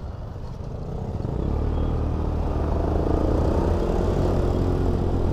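KYMCO Super 8 scooter's engine running on the road, a low rumble that grows louder from about a second in and then holds steady.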